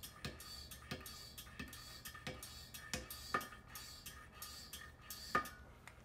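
Hand air pump on a Coleman pressure lamp's fuel tank being stroked in a steady rhythm, a click and a short rush of air on each stroke, pressurizing the tank for lighting. The pumping stops near the end.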